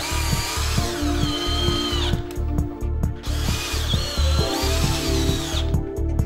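Cordless drill-driver driving screws through an aluminium fixing plate into a door sash: two runs of motor whine, each about two seconds long, the first sinking in pitch as it goes. Background music with a steady beat plays under it.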